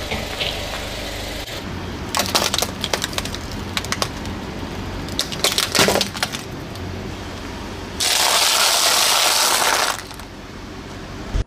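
A car tyre rolling slowly over small objects and crushing them: clusters of cracks and snaps about two and five to six seconds in, then a loud, rough crunching noise lasting about two seconds near the end.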